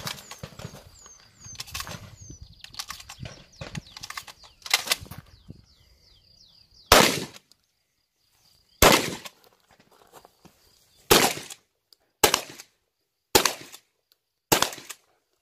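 Six shotgun shots, a second or two apart, starting about halfway through, after several seconds of scattered clicks and knocks.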